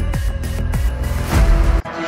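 Electronic background music with a heavy, booming bass-drum beat; it cuts off abruptly near the end.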